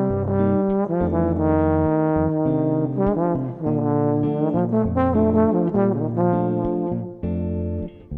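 Trombone playing a melodic bossa nova solo over guitar accompaniment: a flowing run of held and shorter notes that dips briefly near the end.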